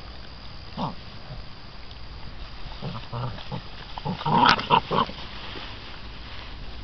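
Six-week-old American Bandog Mastiff puppies making short vocal noises while biting and tugging at a chicken tied to a string, with a few scattered sounds and then a louder cluster of them about four to five seconds in.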